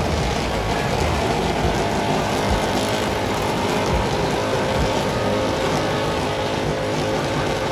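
Lifted mud truck's engine running steadily and loud in the bog pit, a continuous heavy drone with no letup.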